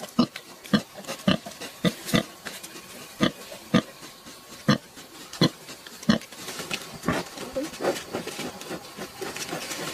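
Sow grunting while newborn piglets suckle: a series of short, low grunts, roughly one a second, for about six seconds, then softer, higher, busier piglet sounds near the end.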